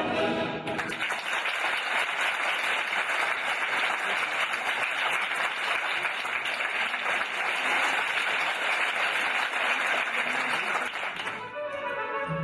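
Audience applauding in a theatre: dense, steady clapping that sets in under a second in as the orchestra's closing chord fades, lasts about ten seconds, and gives way to the orchestra starting up again near the end.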